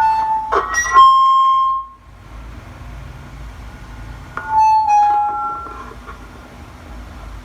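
Portable voice amplifier's speaker giving short bursts of microphone feedback: steady squealing tones, each set off by a click or knock from the mic, in two groups, the first in the opening two seconds and the second about four and a half seconds in.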